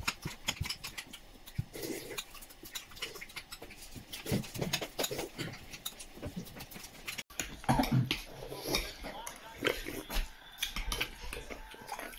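A metal spoon clinking and scraping in a bowl of halo-halo, with close-up chewing and slurping: a string of short clicks and mouth noises.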